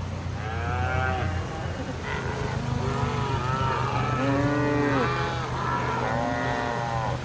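Many cattle mooing over one another, one long call after another, as the herd is swept along in floodwater. A steady low drone runs underneath.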